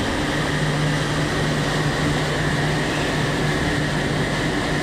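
Hitachi Seiki Super HiCell 250 turning and milling centre running with its spindle turning at a steady speed: a steady hum and a high whine over a wash of mechanical noise.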